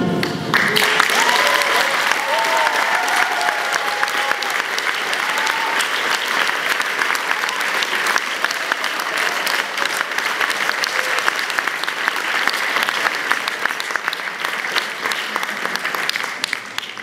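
Choral music breaks off right at the start, and a large audience breaks into steady applause, which thins out near the end.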